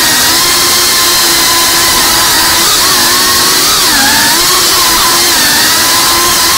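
Small FPV drone's electric motors and propellers whining steadily, the pitch dipping and climbing again several times as the throttle changes.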